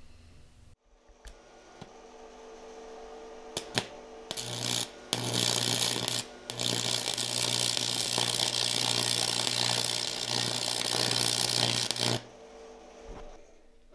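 Stick-welding arc on preheated cast iron, run on AC with a cast iron welding rod: a few sharp clicks as the arc is struck about four seconds in, then a loud, steady crackling hiss over a low buzz. It breaks off briefly twice, then stops about twelve seconds in.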